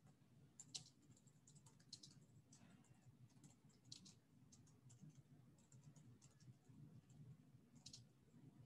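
Faint computer keyboard typing: scattered, irregular key clicks over a low steady hum.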